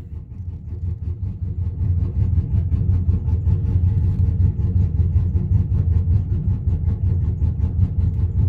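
2001 Chevy Silverado's engine idling steadily through long-tube headers and a 3-inch straight-pipe exhaust, with an even, repeating pulse to the exhaust note.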